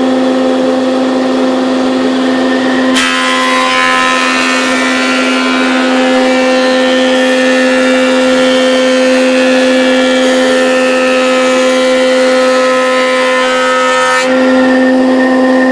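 Jet thickness planer running with a steady motor hum. About three seconds in, a board starts through the cutterhead and adds a louder, higher cutting noise. Near the end the cutting stops and the machine goes back to its free-running hum.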